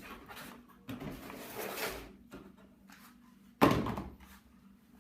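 A laptop box being opened and its packaging handled, with rustling and scraping and a loud thump about three and a half seconds in.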